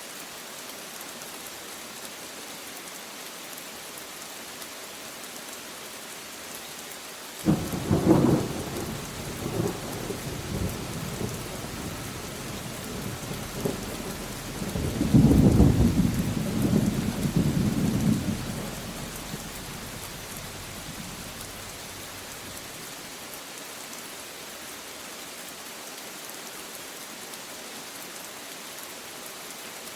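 Thunderstorm: steady rain hissing throughout, with a sudden clap of thunder about seven seconds in, followed by rumbling that swells to its loudest around fifteen seconds and dies away by about twenty seconds.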